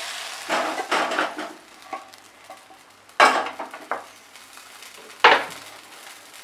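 Cookware clatter: a nonstick kadai and spatula knocking on a gas stove, with a cluster of clinks about half a second to a second in and two sharp, loud clanks about three and five seconds in. Hot oil sizzles faintly at the start and dies away.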